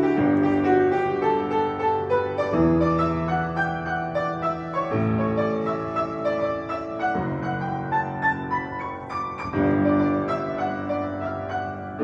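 Background piano music: sustained chords changing about every two and a half seconds, with a melody of single notes played over them.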